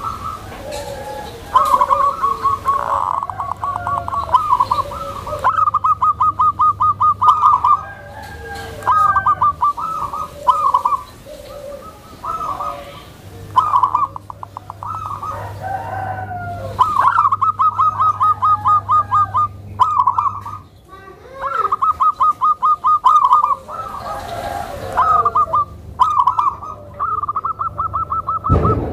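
Zebra doves (perkutut) calling over and over, each call a rapid stuttering trill of cooing notes lasting a second or two, with softer calls overlapping between them.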